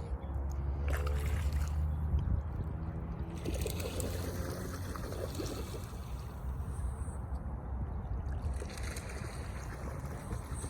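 Waterfowl feeding on oats in water, with splashing and gurgling that comes and goes, over a steady low hum.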